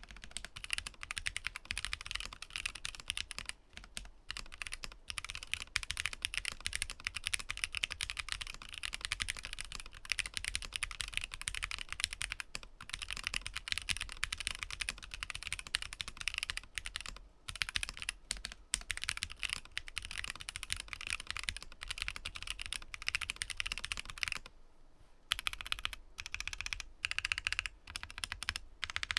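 Typing on a mechanical keyboard with Momoka Frog linear switches in an IV Works AV3 board: a fast, continuous run of keystrokes, with a short pause about three-quarters of the way through.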